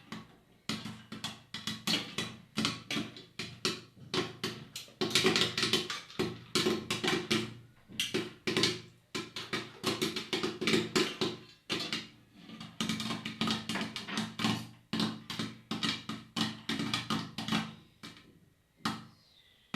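Popcorn kernels popping inside a covered sufuria, a metal cooking pot: a rapid, irregular patter of sharp pops. It thins briefly about twelve seconds in and again near the end, as the popping slows, a sign the batch is almost done.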